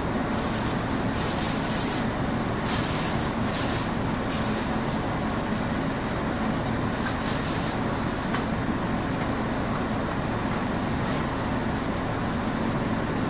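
A city bus's engine idling, heard inside the passenger cabin as a steady low hum while the bus waits at a red light. Several short, high hisses come in the first few seconds and once more about halfway through.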